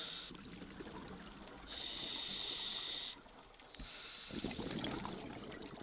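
Scuba diver breathing through a regulator underwater: a hissing inhale ends just after the start, a second inhale hisses for about a second and a half from about two seconds in, and a gurgle of exhaled bubbles follows near the end.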